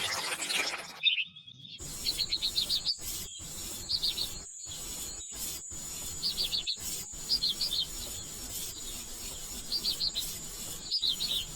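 A brief scraping, rubbing sound, then outdoor ambience of birds chirping in short quick runs of notes over a steady high insect drone, cut out abruptly several times for an instant.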